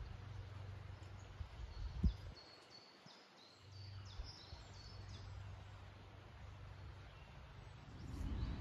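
A songbird singing a quick run of about ten short, high chirping notes, starting just after two seconds in, over a steady low rumble; a single sharp thump comes just before the song.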